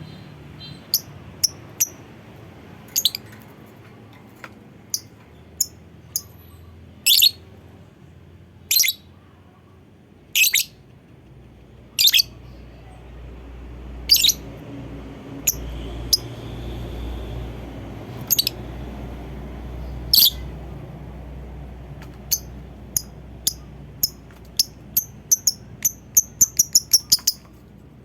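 Lovebird giving sharp, high-pitched single chirps every second or two, then breaking into a quick run of rapid chirps near the end. A faint low rumble sits underneath, swelling in the middle.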